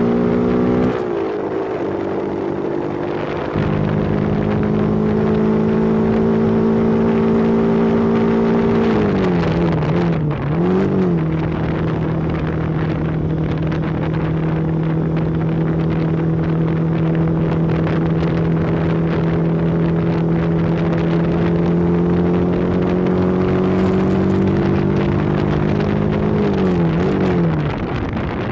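Motorcycle engine running at a steady pitch under way, its note dipping and climbing back once about ten seconds in and again near the end.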